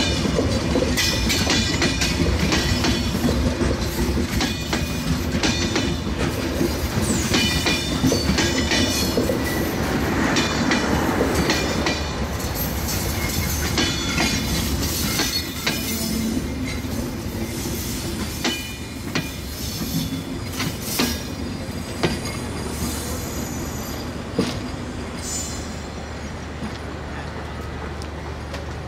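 Broad-gauge passenger coaches rolling past close on a curve: a steady rumble of wheels on rail with clickety-clack over the rail joints and high wheel squeal through the first half. The sound fades slowly in the second half, with a few sharp knocks of wheels over joints.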